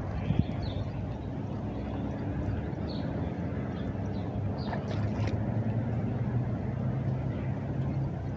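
An engine running steadily, a low hum that grows a little louder after the middle, with a few faint clicks.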